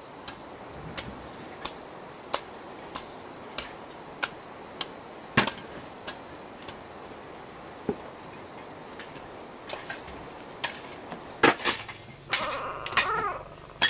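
A series of sharp knocks or chopping strikes, about three every two seconds at first and then more irregular. Near the end an animal gives high, wavering squeals.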